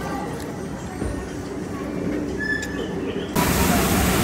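Low restaurant background noise, then about three seconds in an abrupt switch to much louder, steady street noise of a municipal street-sweeper truck running close by.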